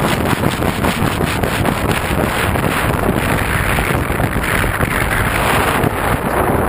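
Loud wind rushing over the bare camera microphone slung under a radio-controlled plane in flight, mixed with the sound of its motor and propeller.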